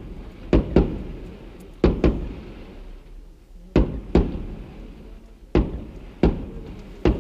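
Fireworks display: aerial shells bursting in a series of sharp bangs, often two in quick succession, about every second or two, each dying away in a short echo.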